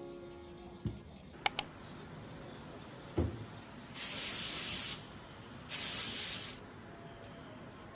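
Antiperspirant aerosol spray, two hissing bursts of about a second each, the second following the first after a short pause. Earlier, a pair of sharp clicks about a second and a half in, the loudest sounds, and a soft thud.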